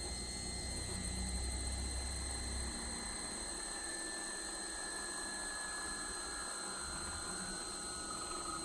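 Chinese 5-axis CNC machine running, with a steady high-pitched whine over a mechanical noise. A low hum drops away about a third of the way in, and faint gliding tones follow later.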